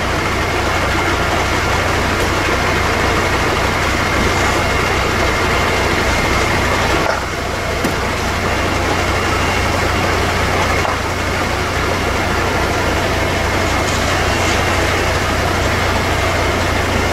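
Fire engine's diesel engine running steadily at high idle to drive its pump for the hoses: a low drone with a constant high whine over a rush of noise, dipping briefly about seven seconds in.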